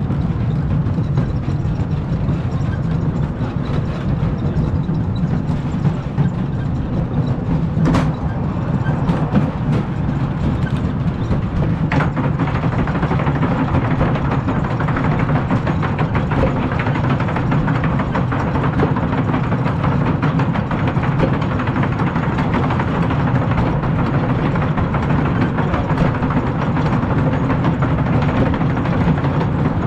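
Wooden roller coaster train running along its wooden track: a steady low rumble with continuous rattling that grows denser from about halfway, and a couple of sharp clacks early on.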